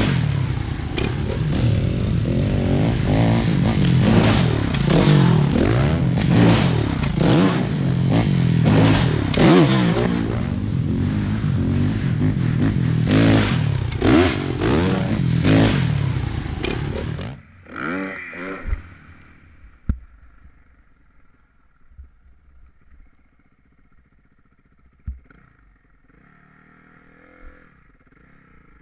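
Dirt bike engine revving hard, its pitch rising and falling as the throttle is opened and closed through the ramp run-up and jump. About two-thirds of the way through the sound drops off sharply to a faint hum with a few separate knocks.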